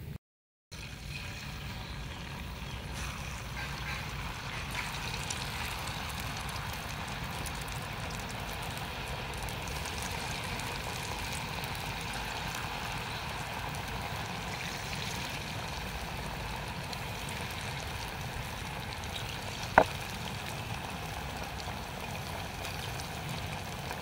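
Battered slices deep-frying in a wok of hot oil, a steady sizzle and bubbling. One sharp click about 20 seconds in.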